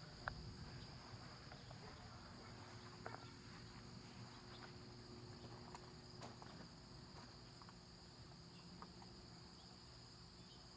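Faint, steady high-pitched insect chorus in near silence, with a few soft clicks.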